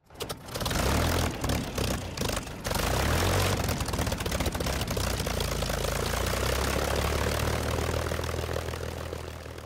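Propeller aircraft engine running: a steady low drone under a broad roar that comes in quickly, dips briefly a few times early, then holds and fades out near the end.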